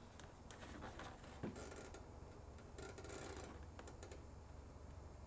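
Faint scattered clicks and short scratchy rustles of hands handling small plastic engine parts.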